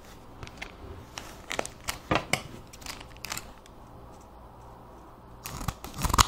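Gold foil trading-card pack wrapper crinkling as it is handled, with scattered sharp crackles, a quiet spell, then a busy run of crinkling near the end.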